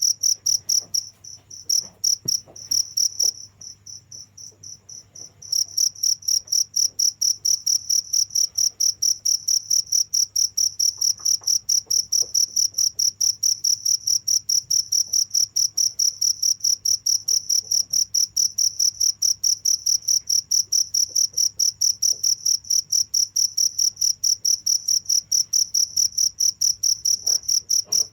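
Cricket chirping: a high, shrill pitch repeated in rapid, even pulses. It falters and drops away for a couple of seconds a few seconds in, then resumes steadily.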